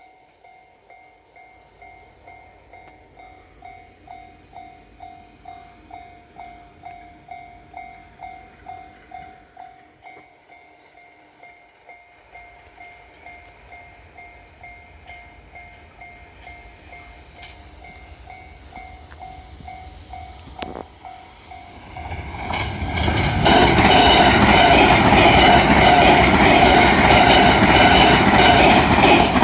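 Japanese level-crossing warning bell ringing steadily, about two strokes a second. About 22 seconds in, a train arrives and passes over the crossing, its loud running noise and wheel clatter drowning the bell.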